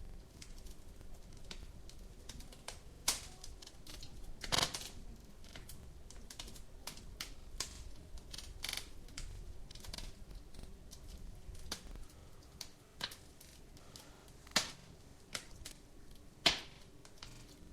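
Wood fire in a fireplace crackling: a steady stream of small irregular snaps with a few louder pops scattered through, over a low rumble of the flames.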